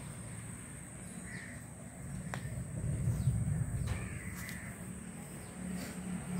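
A crow cawing a few times, over a low rumble that swells in the middle.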